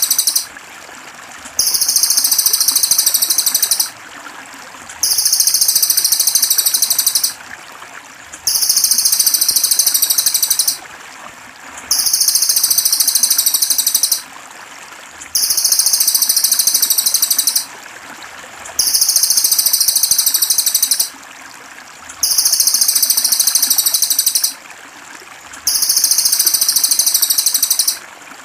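A songbird's masteran training recording: a very high, rapid chattering phrase about two seconds long, repeated almost identically about every three and a half seconds as a loop, over steady trickling water.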